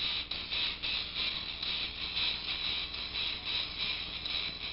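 Legacy Power Morpher toy playing electronic music through its small built-in speaker behind the Power Coin: thin and tinny, with a pulsing beat, struggling with the bass.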